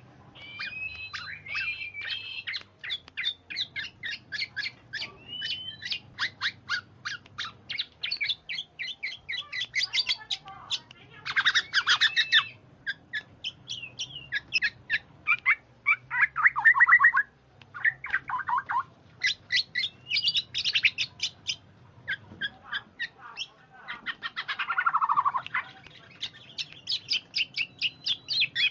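Black-naped oriole (kepudang) calls played as a bird-lure recording: a fast, busy run of chattering chirps, broken a few times by harsh, falling squawks.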